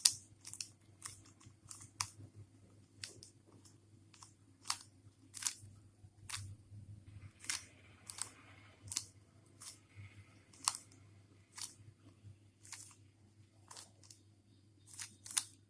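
Rubik's Cube layers being turned by hand: a string of sharp plastic clicks, irregular, about one or two a second, over a low steady hum.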